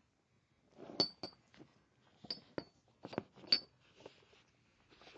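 Hardened steel padlock and heavy 19mm security chain link clinking together about six times as the padlock is worked onto the link, each sharp metallic clink followed by a brief high ring.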